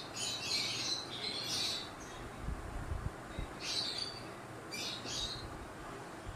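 Pizza cheese being grated on a stainless-steel hand grater: four raspy scraping runs, each about half a second of quick strokes, with a few soft knocks of the grater in between.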